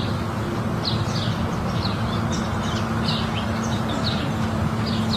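A small bird chirping repeatedly in short, high chirps over a steady low hum and noise.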